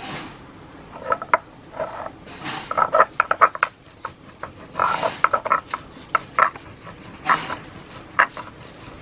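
Crisp fried onions crackling and crunching as they are crushed by hand and ground with a stone roller on a stone grinding slab (shil-nora), in irregular clusters of short scraping crackles.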